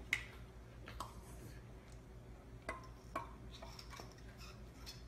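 A few faint, scattered clicks and taps of hard plastic as a plastic wand and a clear plastic toy tank are handled.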